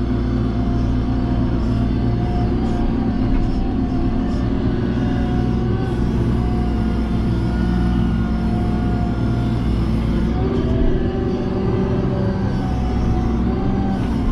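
JCB 3CX backhoe loader's diesel engine running steadily under working load, its note shifting about ten seconds in.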